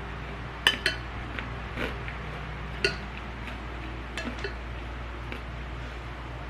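Cutlery clinking against a dish while eating: about eight sharp clinks, the loudest two close together near the start and another about three seconds in, over a steady low hum.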